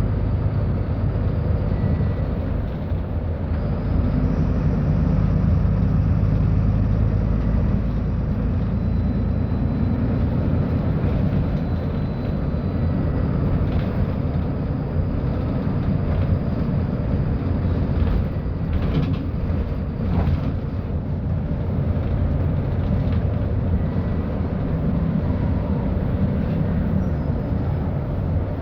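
Mercedes-Benz O-500U city bus's diesel engine running, with its ZF Ecolife automatic gearbox: a steady loud low rumble whose pitch shifts a little. A few short rattles or knocks come around the middle.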